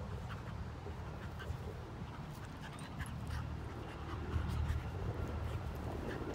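Dogs panting while play-fighting: a Staffordshire bull terrier–Rhodesian Ridgeback cross mouthing at a Husky–Pomeranian puppy rolling on its back.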